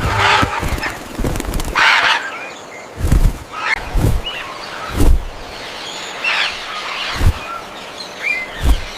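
Blue-and-gold macaws flapping their wings in a string of irregular thumps, with two rushing flurries in the first two seconds and short squawks between.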